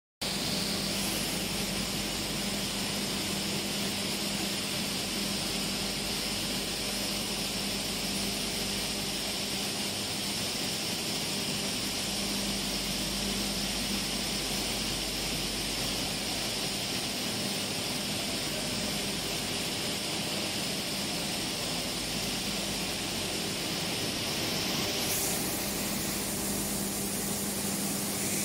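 Corn flour milling plant machinery running: a steady hum and whir of the mills, sifters and elevators, with a high hiss that eases off about 25 seconds in.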